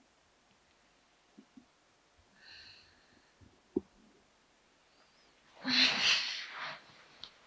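Duvet and bedsheets rustling as a person rolls over in bed, one loud rustle lasting about a second near the end. A few faint clicks come before it.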